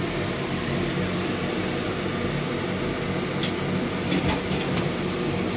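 Steady hiss of a gas hob burner under a lidded wok of braising liquid simmering, with a few light clicks about three and a half to five seconds in.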